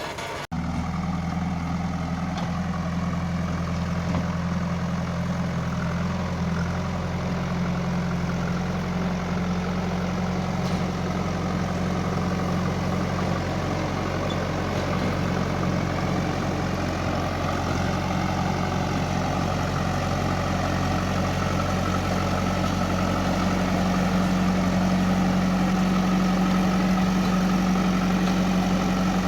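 JCB 3DX backhoe loader's diesel engine idling steadily, getting slightly louder toward the end.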